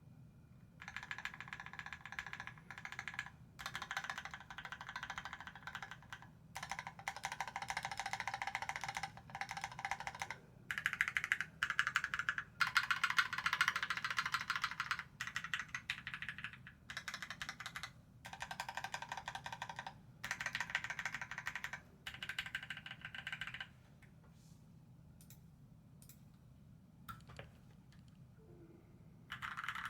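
Typing on a SQUARE.X 60% aluminium-case keyboard with lubed, filmed Gateron Kangaroo switches and GMK keycaps: fast runs of keystrokes in bursts of a second or two with short pauses between. Near the end the typing stops for about five seconds, with only a few single keystrokes, then starts again.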